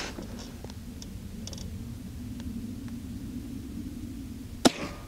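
Ruger Precision Rimfire .22 LR rifle firing a single sharp shot about four and a half seconds in, over a steady low hum.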